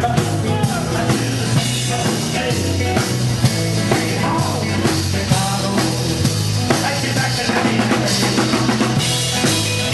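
Live rock band playing: a drum kit keeping a steady beat under electric guitar, bass guitar and keyboards.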